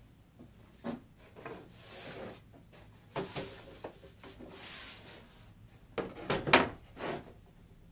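Watercolour brush scrubbing and swishing across paper in short strokes, with several sharp knocks and taps on wood, the loudest cluster near the end.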